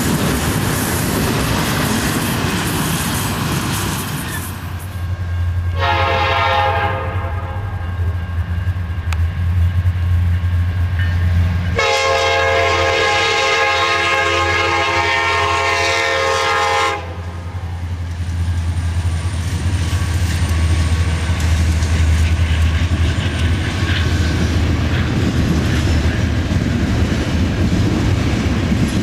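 Freight train rolling past with steady wheel-on-rail noise and a low rumble. A diesel locomotive's air horn sounds a short blast about six seconds in and a long blast of about five seconds around twelve seconds in, the warning for a road grade crossing; the cars keep clattering past afterwards.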